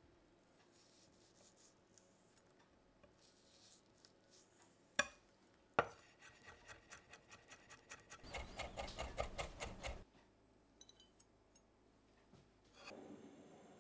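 Chef's knife chopping garlic cloves on a bamboo cutting board: two sharp knocks, then a run of rhythmic strokes that quickens to about five or six a second and grows louder for about four seconds before stopping suddenly.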